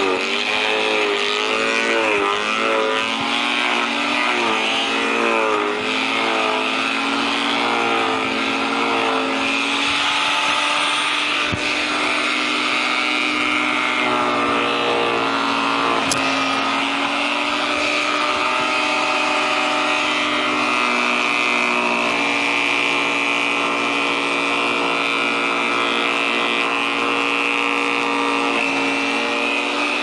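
Engine-driven garden branch shredder running under load as branches are fed in: the engine pitch dips and recovers repeatedly for about the first ten seconds, then runs steadier.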